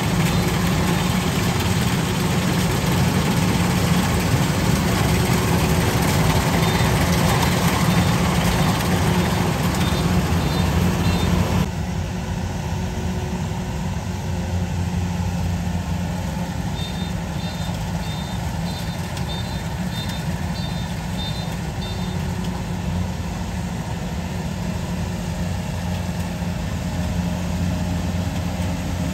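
Kubota DC-93 combine harvester's diesel engine running steadily as it cuts rice, a continuous low hum that drops to a quieter level about twelve seconds in. Twice, a few seconds of quick, high-pitched beeping sound over it, about two beeps a second.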